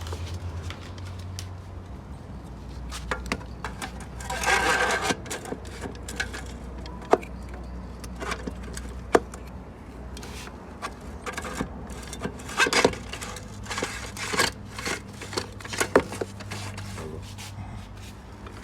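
Metal parts of a ZF 8HP automatic transmission being handled and fitted together: scattered clinks and knocks, with a longer scrape about four to five seconds in.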